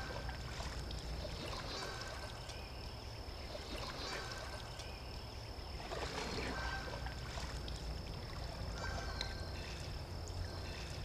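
Faint outdoor ambience at a slow woodland creek: a low steady rumble under soft water sounds. A thin steady high tone runs throughout, and a short high note repeats about every two seconds.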